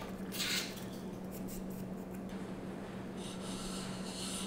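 A hand plane scraping across the end grain of a dovetail joint with a short stroke about half a second in, followed by fainter scuffs. Near the end, a hand rubs across the planed wood with a soft hiss, over a faint steady hum.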